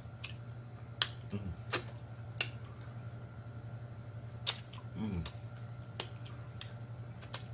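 Close-up eating sounds of chicken wings: wet lip smacks and finger licking, sharp clicks every second or so, over a steady low hum, with two short hums of the voice.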